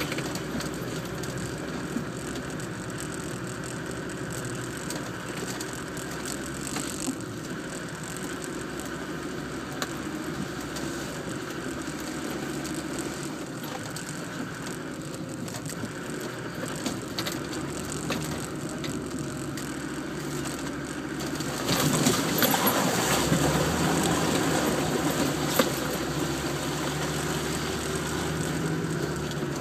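Land Rover Defender's engine running as it crawls over rough dirt tracks, heard from inside the cab, with scattered clicks and rattles from the body. About twenty-two seconds in the engine is worked harder and gets louder for a few seconds.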